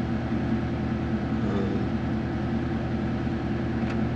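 Jaguar XF's engine idling, heard from inside the cabin as a steady low pulsing hum, with the air-conditioning fan hissing over it.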